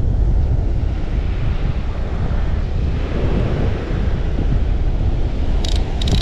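Wind buffeting the microphone over the wash of surf, loud and steady. Near the end, a few short high rattles from the baitcaster reel's mechanism.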